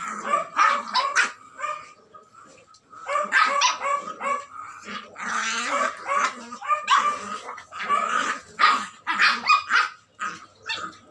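Two puppies barking in short, rapid bursts as they play-fight, with a brief lull about two seconds in.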